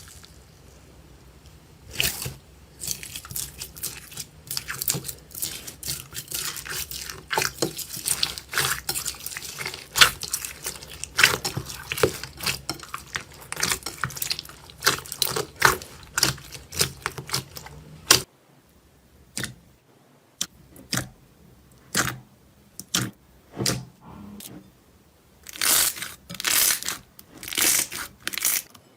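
Slime being squeezed and worked by hand, giving a dense run of small sticky crackles and pops. About two thirds of the way through the sound changes abruptly to separate squelches about once a second over a quieter background.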